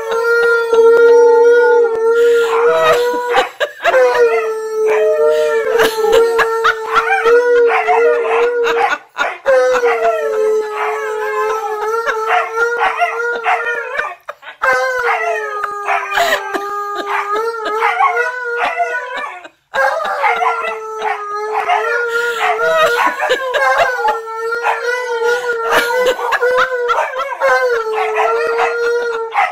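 An Alaskan Malamute and a husky howling together, long drawn-out howls held on a steady pitch with short breaks every few seconds, the two voices overlapping.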